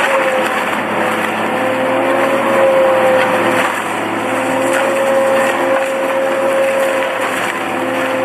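Industrial shredder running and grinding material, a steady motor whine over dense crackling and breaking noise.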